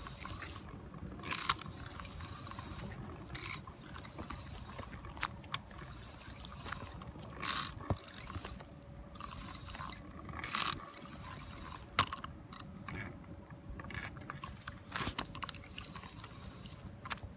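Spinning fishing reel being wound in with a fish on the line, its gears and clicker ratcheting in irregular bursts.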